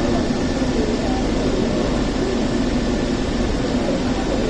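Steady rumble and hum inside a Hong Kong Peak Tram funicular car running on its track, with no knocks or changes.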